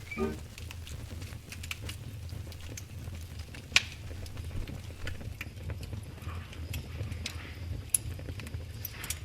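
Wood fire burning with a low steady rumble and scattered sharp crackles and pops, the loudest pop a little under four seconds in and another near the end.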